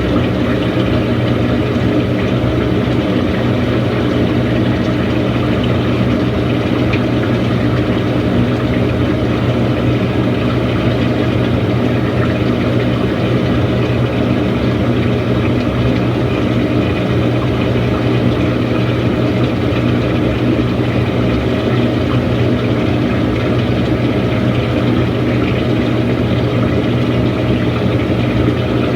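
Samsung washing machine running, a steady, unchanging motor hum.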